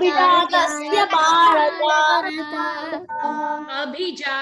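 Children's voices chanting a Sanskrit verse line in a sing-song recitation over a video call, several voices overlapping out of step as they repeat the line after the teacher.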